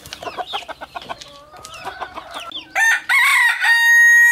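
Chickens clucking, then a rooster crows loudly about three seconds in: one long crow held at a steady pitch.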